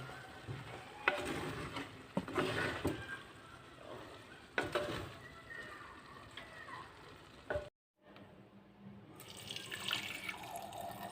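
Water from a tap splashing at a sink in uneven runs, with a few sharp knocks of things being handled. The sound drops out completely for a moment about eight seconds in.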